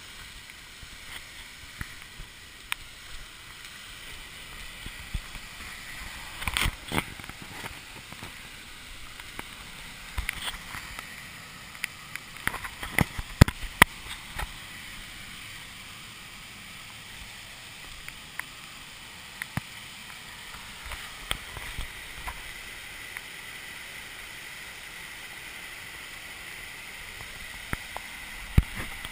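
Waterfall swollen with floodwater, pouring in a steady rush. Scattered sharp clicks and knocks stand out over it, the loudest about halfway through.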